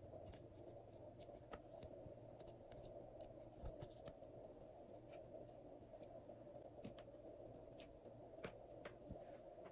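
Faint, scattered sticky clicks and pops of glossy slime being mixed by hand, a few each second, over a steady low hiss.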